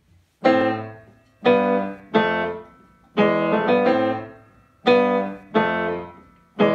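Grand piano played solo: a slow series of jazz chords, each struck and left to ring and fade before the next, about seven in all.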